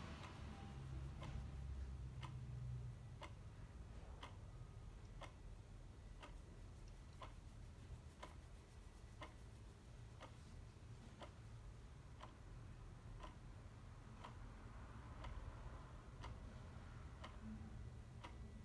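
Clock ticking steadily, about two ticks a second in an alternating tick-tock, over a faint low background rumble.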